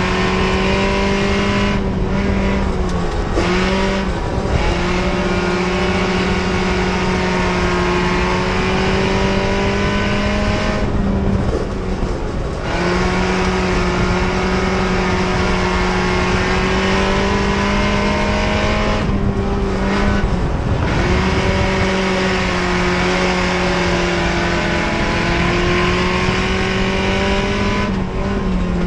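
Mini stock race car's four-cylinder engine heard from inside the cockpit, running hard at high revs with a steady pitch. Four times, about every eight to nine seconds, the note drops and breaks for a second or two as the driver lifts off the throttle for a turn, then comes back on.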